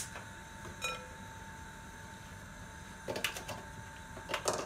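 A gas hob's spark igniter gives a last sharp click as the burner lights. About a second in there is a short ringing clink, and two brief clusters of rattling knocks follow as kitchenware is handled.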